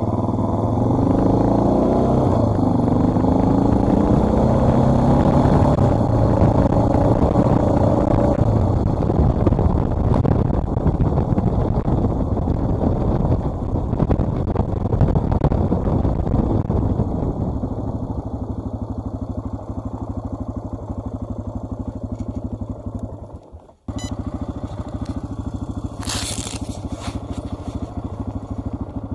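Dual-sport motorcycle engine running under way. Over the first eight seconds the pitch climbs several times as it accelerates, then it settles to a steadier, lower note. The sound drops out very briefly about 24 s in, and there is a short scraping clatter a couple of seconds later.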